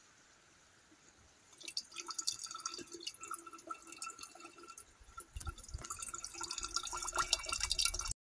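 Filtered water trickling and dripping from a squeeze water filter into a stainless steel bottle, starting a little over a second in and with a ringing tone from the filling metal bottle. It grows louder toward the end, then cuts off suddenly.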